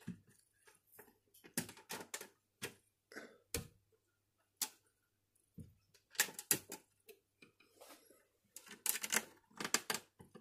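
Irregular plastic clicks and taps from a clear plastic animal tub being handled inside a glass vivarium, some coming in quick clusters.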